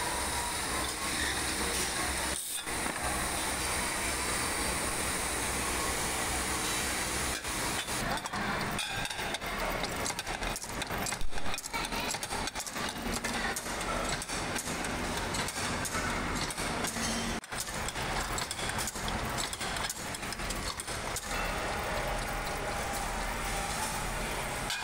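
Factory machinery running steadily while pressure cooker parts are made, with metal rattling and clinking and one loud knock about eleven seconds in.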